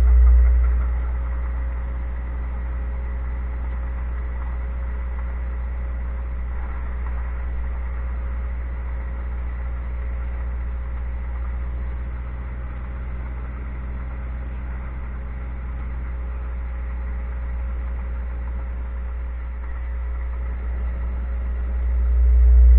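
Pontiac Trans Am's LT1 5.7-litre V8 running under way, a steady low rumble that swells louder briefly at the very start and again near the end, with a faint steady whine above it.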